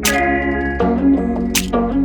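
Background music: a sustained chord with a steady beat of sharp percussion hits.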